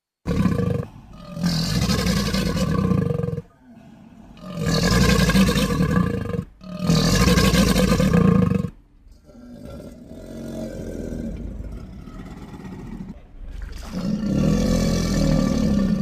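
Creature sound effects for a galloping crocodile: a series of deep pitched roars, each lasting about two seconds with short gaps between them. The fourth roar is quieter and longer than the others.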